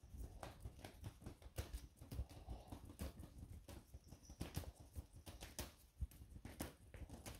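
Faint, irregular clicking and light tapping, several small knocks a second at uneven spacing.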